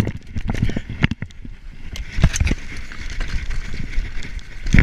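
A mountain bike riding down a leaf-covered forest dirt trail: the tyres rumble over the ground and the bike rattles and clatters with irregular knocks over the bumps, with wind rumble on the camera microphone.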